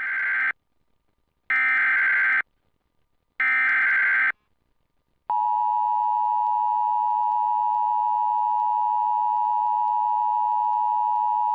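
Emergency Alert System tones opening a new alert: three short bursts of SAME digital header data, then, about five seconds in, the steady two-tone EAS attention signal.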